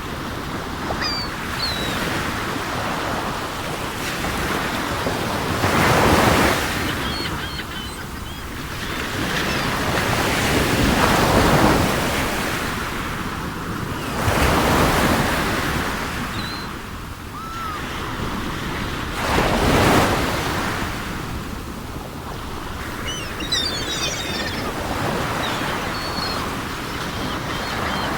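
Sea surf breaking, swelling into a loud surge every few seconds, with seagulls giving short high calls now and then above it and a small flurry of calls near the end.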